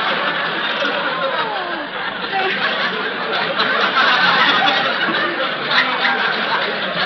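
Studio audience laughing at a punchline, a long wave of laughter that eases about two seconds in and swells again.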